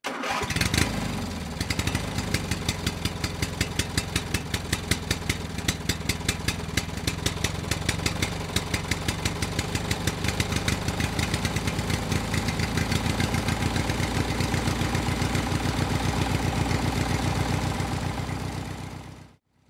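Small gasoline engine, of the kind used on lawnmowers, starting up in the first second or so and then running steadily with a fast, even firing rhythm. It cuts off suddenly near the end.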